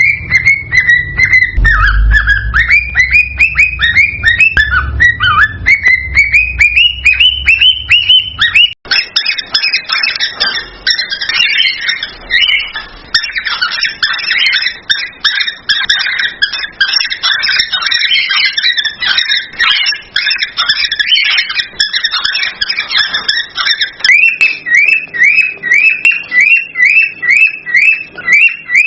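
Cockatiels whistling in quick, repeated rising notes, several a second. About nine seconds in, the sound switches abruptly to a dense stretch of overlapping chattering calls. The rising whistles return about twenty-four seconds in.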